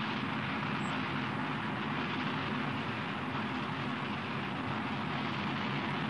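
Steady, even roar of the Zenit-3SL rocket's first-stage RD-171 engine during ascent, with its propulsion running nominally.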